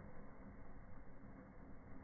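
Faint, steady fizzing of a small indoor table firework's spark fountains burning, with no bang.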